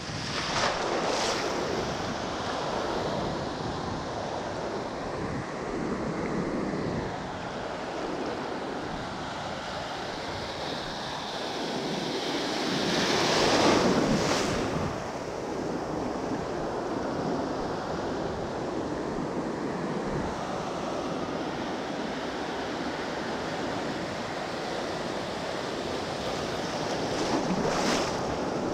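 Ocean surf washing onto a beach, with wind buffeting the microphone. A wave breaks loudest about halfway through, with smaller ones near the start and near the end.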